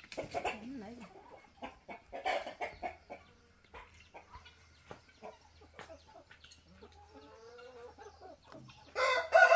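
Chickens clucking, with scattered short calls, then a rooster starts a loud crow near the end.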